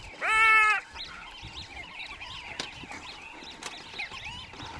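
A single squeal from a brown hyena in a fight, one steady high-pitched call about half a second long, near the start. Small birds twitter faintly throughout.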